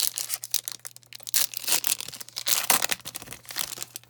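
The wrapper of a Topps baseball card pack being torn open and crinkled by hand, a dense run of crackling and tearing.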